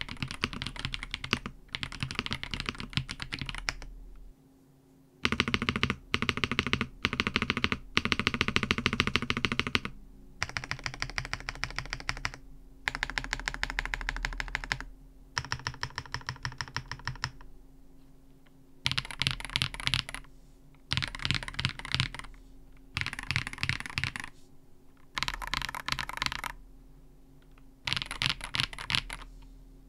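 Typing on an Ajazz AK820 Pro plastic 75% keyboard with its stock Ajazz Flying Fish linear switches, in bursts of fast keystrokes with short pauses between them.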